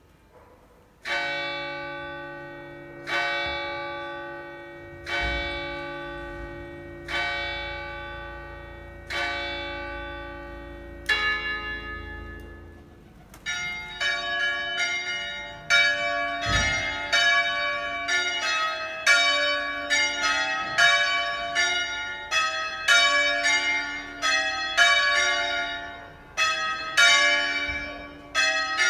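Church tower bells: one bell tolls six single strokes about two seconds apart, each left to ring away. Then, about 13 seconds in, the three smallest bells of a seven-bell ring in D-flat, cast by Crespi in 1753, begin swinging in full peal, their strokes overlapping in a quick, uneven jumble.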